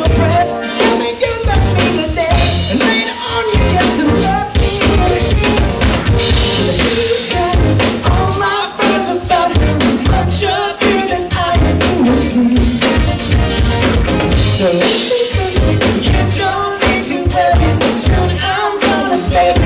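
Live rock band playing loud: drum kit, electric guitar and bass guitar, with a man's voice singing over them.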